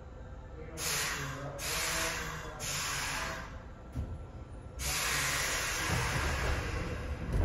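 Compressed air hissing from an old Keihan 2600 series electric train's pneumatic brakes as they release for departure: three short hisses about a second each, a knock, then a longer hiss from about five seconds in. A low rumble builds under it near the end as the train starts to move.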